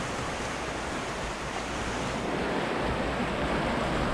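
Flooded river water rushing past in a steady noise, with wind buffeting the microphone.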